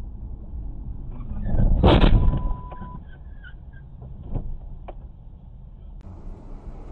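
A white Ram pickup colliding with a car: a loud crash of the impact about two seconds in, over steady road rumble inside the car. A steady beep lasts about a second just after the crash, and a few sharp knocks follow.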